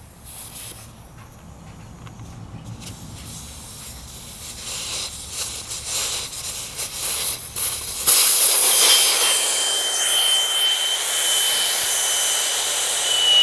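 Air escaping from a Honda ST1100 motorcycle tire through its valve stem as the valve core is unscrewed to deflate it. A soft hiss builds, then about eight seconds in it jumps to a loud rush of air with a thin steady whistle as the core comes free.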